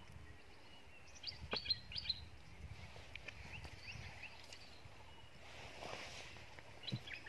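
Birds chirping in short, quick high notes, a cluster about a second in and another near the end, over faint low outdoor background noise.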